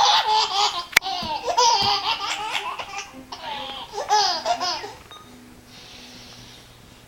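A baby laughing in two fits, the second shorter, then falling quiet about five seconds in.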